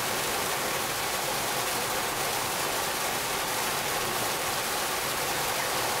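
Man-made garden waterfall: a thin column of water falling from a concrete ledge and splashing steadily into a pool below.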